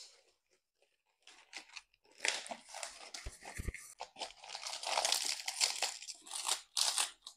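Fresh banana leaves crinkling and rustling in irregular bursts as they are folded and pressed down over a cooking pot, with two brief low thumps a little over three seconds in.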